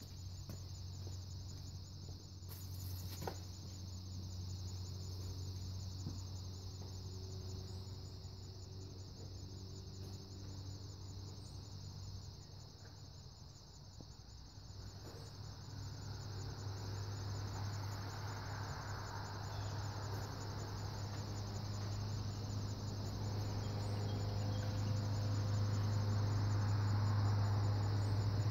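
Steady insect chirring in a high band. A low engine hum grows gradually louder over the second half, like a vehicle running close by.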